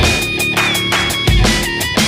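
Background music: heavy, guitar-driven rock with a steady drum beat and sustained bass notes.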